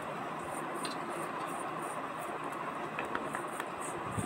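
Wet cut potato sticks set down on a steel plate, giving a few light clicks about a second in and again around three seconds in, over a steady background hiss.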